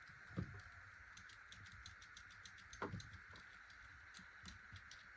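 Near silence: a faint steady hiss with light ticking, and two soft taps, one about half a second in and one near three seconds in.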